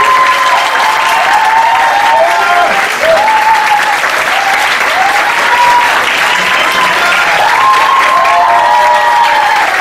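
Audience applauding steadily. Voices call out and cheer over the clapping throughout.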